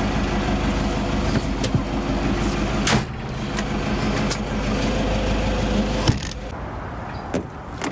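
Toyota Hilux running at idle, heard from inside its canopy-covered tray as a steady low hum. There is a sharp click about three seconds in and a thump about six seconds in as the canopy's rear window is shut, after which the sound is quieter.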